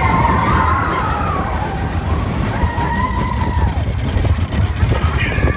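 Amusement ride car in motion: a steady heavy rumble with wind noise, and long wavering high-pitched tones over it near the start and again about three seconds in.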